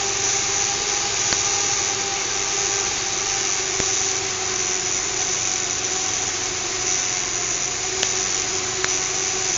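Small fischertechnik electric motor running steadily, a whirring hiss with a high, even whine.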